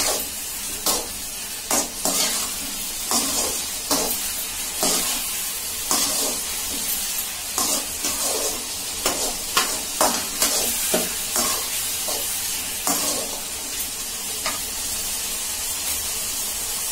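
Chicken Manchurian balls sizzling in their sauce in a metal kadai, with a metal slotted spoon stirring and scraping against the pan about once or twice a second. The sauce is being roasted down onto the chicken.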